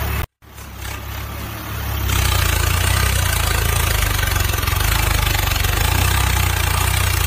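A tractor's diesel engine running steadily with a fast, even low throb, cutting out for a moment near the start and growing louder about two seconds in.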